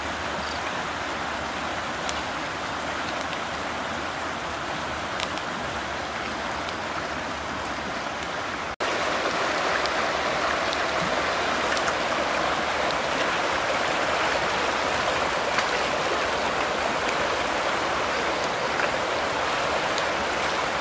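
Rushing river water over rapids, a steady even rush. It is quieter with a few sharp clicks at first, then louder and fuller from about nine seconds in.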